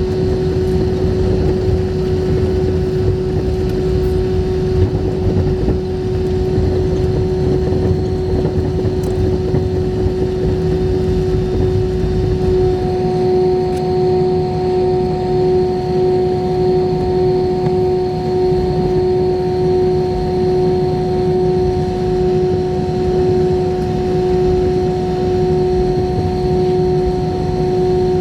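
Airbus A320 cabin noise with the IAE V2527-A5 turbofan engines running: a steady hum over a low rumble. About twelve seconds in, a second, higher hum tone joins and the rumble eases a little.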